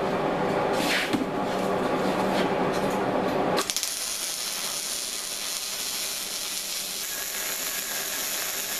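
A steady hum, then about three and a half seconds in a MIG welder's arc strikes and runs with a continuous crackling hiss as a bead is laid along the steel tabletop and angle-iron frame.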